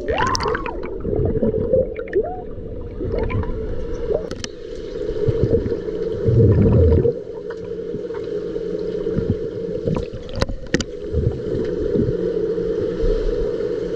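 Heard with the microphone underwater in a swimming pool: a splash as it goes under at the start, then a steady hum beneath muffled water turbulence and bubbling. A loud low rumble comes about halfway through, and a couple of sharp knocks follow later.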